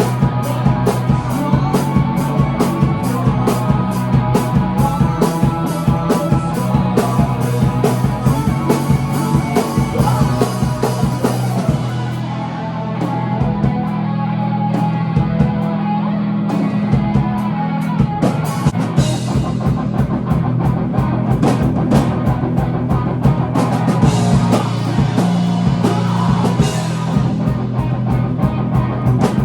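Rock music with a full drum kit and guitar at a steady tempo; the cymbals drop away for a few seconds about twelve seconds in, then come back.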